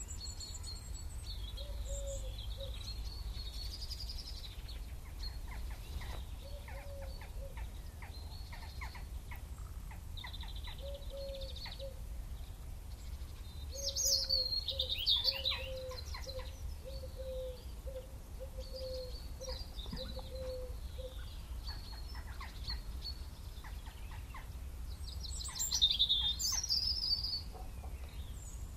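Birds chirping and singing, with louder song phrases about halfway in and again near the end, and a run of short low notes repeated about twice a second in the middle. A steady low rumble runs underneath.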